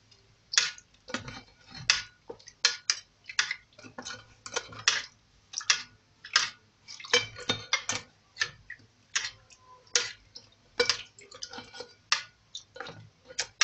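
Dry, brittle roqaq dough sheets crackling and rustling in many short, uneven bursts as they are handled and soaked in a bowl of broth, milk and butter, with light clinks of a spoon against the bowl.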